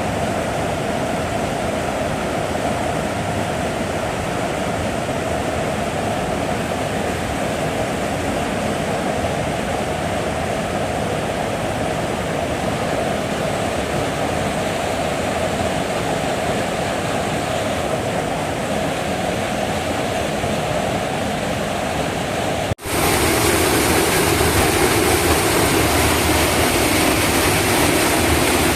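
Rushing water of a mountain river or waterfall, a steady rush. Near the end it cuts abruptly to a louder, hissier rush of water.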